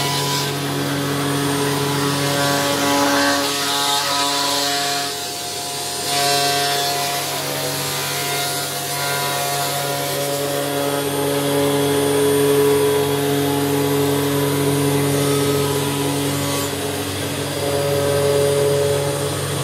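CNC router's spindle and cutter routing through polycarbonate sheet: a steady multi-tone machine whine over a rushing hiss, with the tones shifting in pitch a few times as the cut goes on.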